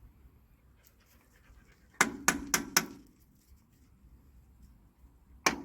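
Sharp knocks, as of a hammer striking: four in quick succession about two seconds in, and another quick run starting near the end.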